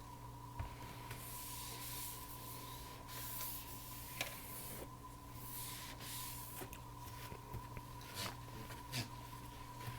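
Faint rubbing and rustling, like handling, with a few light clicks and taps, over a steady electrical hum and a faint steady high tone.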